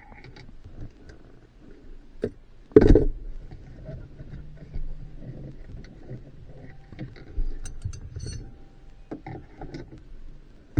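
Tools and screws handled in a truck's plastic dash: scattered small clicks and rattles, with one louder knock about three seconds in, as Torx screws are fitted without a magnetic bit.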